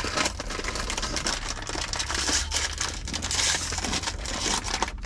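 A plastic food wrapper being handled and opened: a continuous, dense crackle.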